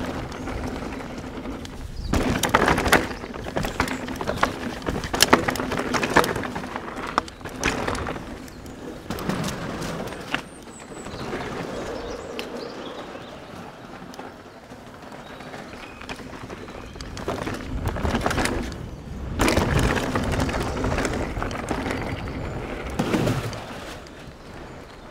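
Mountain bike running down a rough, steep dirt trail: tyres rumbling over roots and rocks with the frame and chain rattling and clattering. The rattle comes in two louder rough stretches, a couple of seconds in and again near the end, with smoother, quieter rolling between.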